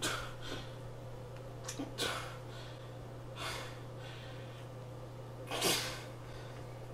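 A man's heavy breaths, about five short sharp gasps or sniffs, the loudest near the end, over a steady low electrical hum.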